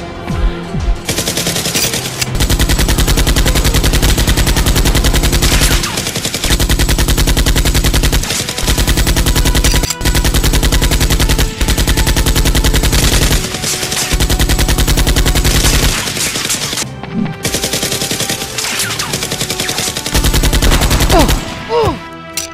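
Rapid automatic gunfire, a stream of shots many a second in long volleys broken by short pauses, starting about a second in and stopping near the end; a dubbed machine-gun sound effect over a toy-blaster fight.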